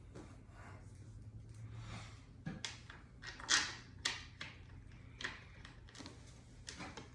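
Small irregular clicks and scrapes of screws being threaded by hand into a Onewheel XR fender mount, over a low steady hum. The loudest clicks come about three and a half and four seconds in.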